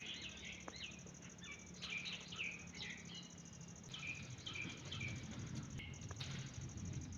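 Small birds chirping, many short quick calls. A steady high-pitched band of sound runs underneath.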